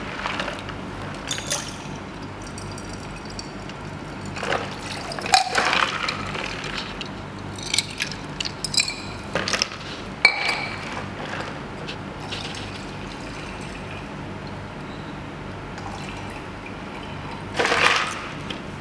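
Water scooped from a plastic bucket with a glass beaker and ice water poured back in to cool it, in several short splashing bursts with light clinks of glass and ice.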